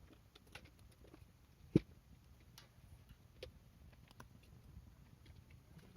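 Wood fire crackling: scattered small pops and ticks from the burning wood, with one sharp, much louder pop about two seconds in.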